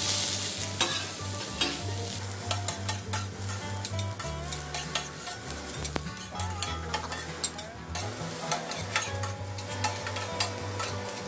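Diced onion, mushroom and green bell pepper sizzling as they stir-fry on a flat-top griddle, with two metal spatulas scraping and clicking against the hot plate as they toss them. Many short sharp clicks at uneven intervals over a steady sizzle.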